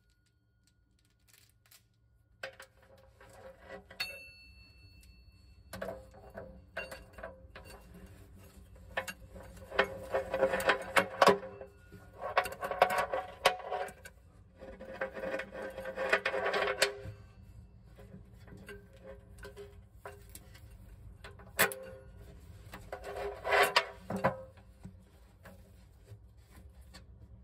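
Steel roller drive chain rattling and clinking against the sprockets of a Bobcat 743 skid steer's chaincase as it is fed on by hand, in four bursts of a second or two, with one sharp metallic click.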